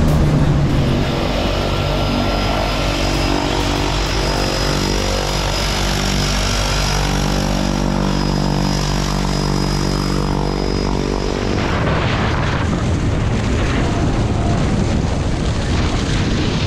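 Small propeller airplane's engines running steadily, a constant multi-tone drone. About twelve seconds in, the drone gives way to a rushing noise of wind and water from a speeding boat.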